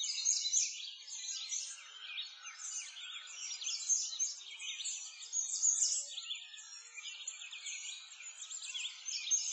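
Many songbirds chirping and singing at once, a dense, continuous chorus of quick high-pitched chirps and trills.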